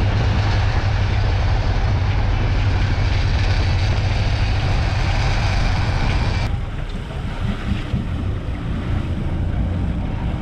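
Boat engine running steadily, with wind and water noise rushing over the microphone. About six and a half seconds in, the sound abruptly turns duller and a little quieter.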